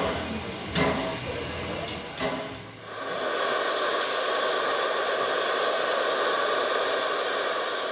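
A couple of sharp knocks over a low rumble, then, about three seconds in, a steam locomotive venting steam in a steady hiss.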